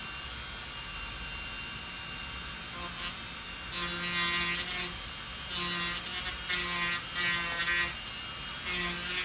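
Dremel rotary tool running with a steady whine, then from about four seconds in buzzing in repeated strokes of about a second as its sanding bit is pressed against dried crack filler on a vinyl dashboard to smooth it flush.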